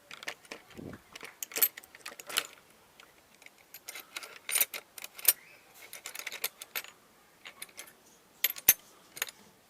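Metal hand tools clinking and clattering against each other as they are handled, a run of irregular sharp clicks with a few louder clanks.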